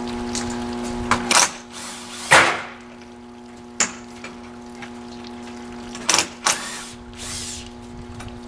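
Sharp knocks and clanks from greenhouse frame parts being taken apart; the loudest comes a little over two seconds in. Under them a steady machine hum stops about a second in and starts again near the end.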